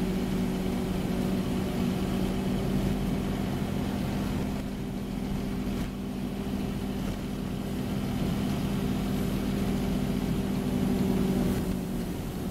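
Scania OmniCity N230UD double-decker bus's diesel engine running steadily at idle, a constant low hum heard from inside the lower deck.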